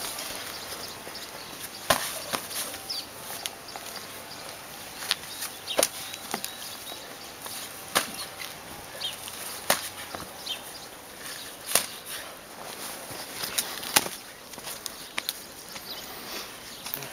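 A series of sharp knocks and slaps, one every second or two, irregular in spacing and loudness.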